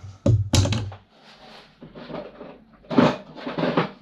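Two heavy knocks of metal fan-motor parts being put down on a work surface in the first second, followed by clattering and rustling as the stripped motor pieces and copper wire are handled.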